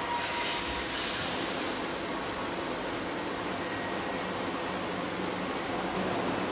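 Steady running-machine noise, an even rush of air with a thin high whine held throughout and a brighter hiss in the first second or two.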